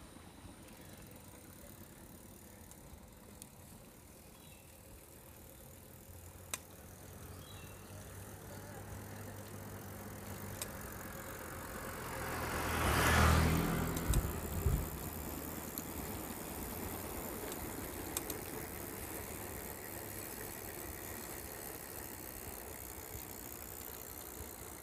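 A motor vehicle passing close by: its engine hum builds, peaks about halfway through, then fades away.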